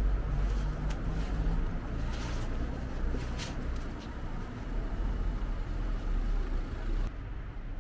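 Town street ambience: road traffic running, with a steady low rumble and a few soft knocks in the first half.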